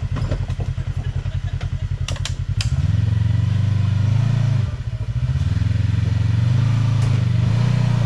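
Side-by-side UTV engine idling with a pulsing beat, then revved up about two and a half seconds in and held under load as it climbs over rocks, easing off briefly near the middle. A few sharp clicks come just before the revving.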